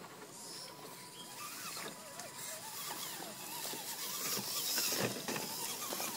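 Radio-controlled scale crawler truck passing close through shallow creek water: its small electric motor and gears whirring with splashing from the tyres, building to its loudest about four to five seconds in.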